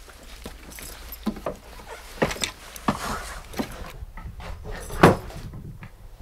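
Irregular footsteps and knocks as people climb up steps through a floor hatch and walk into the room, with the loudest thump about five seconds in.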